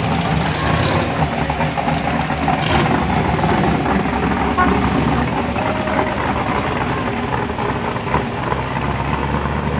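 Engines of a slow procession of classic cars and modern muscle cars driving past one after another, a continuous low engine sound with no break.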